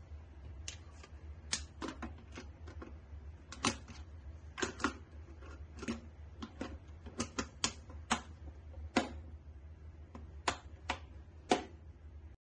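Irregular sharp plastic clicks and taps, about twenty of them spaced unevenly, as the lid and side latch clips of a plastic electric lunch box are handled.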